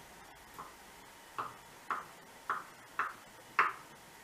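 Kitchen knife chopping cheese into cubes on a wooden cutting board: about six sharp knocks of the blade on the board, roughly two a second, the first faint.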